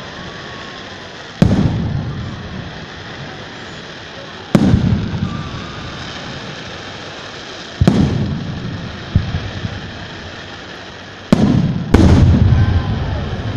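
Aerial firework shells bursting: about six loud bangs a few seconds apart, the last two close together, each followed by a deep rolling echo that dies away.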